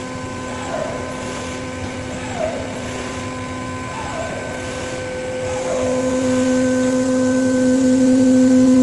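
5-axis CNC machine running with a steady, even-pitched motor hum. The hum grows louder about six seconds in, and faint short chirps come every second and a half or so before that.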